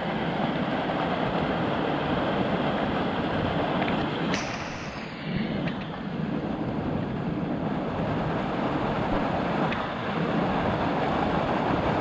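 Small waterfall pouring over rock into a pool close by: a steady, loud rush of falling water, loud enough to drown out a metal detector's signal.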